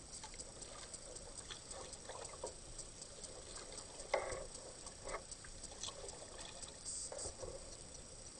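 Kayak paddle dipping into river water, with irregular small splashes and water trickling off the blade; the loudest splash comes about four seconds in.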